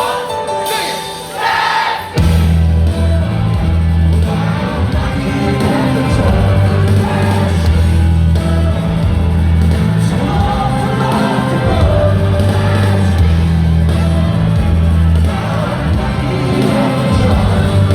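Live rock band playing a song in a large hall, recorded on a phone in the crowd. About two seconds in, the full band comes in with a heavy bass and drum beat under the singing, and the crowd shouts and whoops.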